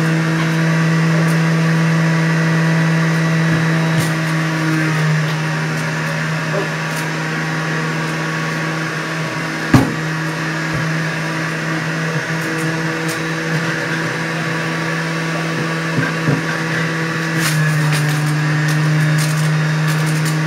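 Juiceman centrifugal juicer's electric motor running with a steady hum as produce is pushed down the feed chute and shredded, its tone shifting slightly about five seconds in and again near the end. A single sharp knock about ten seconds in.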